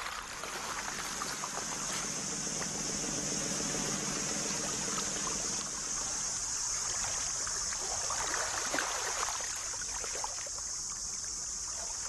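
Steady ambient wetland sound of water trickling, under a constant high hiss, with a few faint ticks about two-thirds of the way through.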